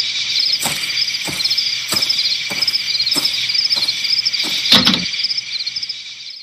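Crickets chirping steadily over a run of evenly spaced footsteps, about one every 0.6 seconds. A louder thump comes near the five-second mark, and after it the chirping fades out.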